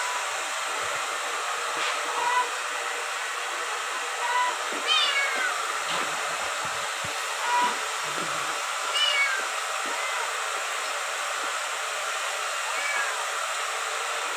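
Kitten mewing: a handful of short, high, falling mews spread through, over a steady background hiss.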